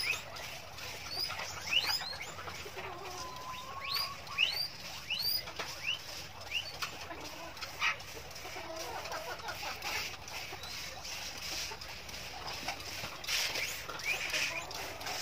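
Birds chirping: a string of short, quickly rising high chirps, about one every half second, dying away after about eight seconds.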